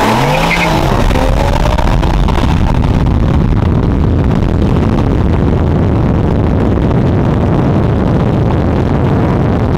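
Sports car engine at full throttle in a roll race, heard from inside the cabin: the revs climb in the first second, then it settles into a loud, steady drone of engine, wind and tyre noise.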